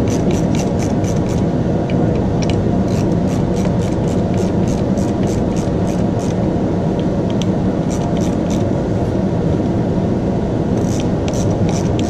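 Ratchet wrench clicking in runs of about five clicks a second, with short pauses, as screws are worked loose, over a steady low hum.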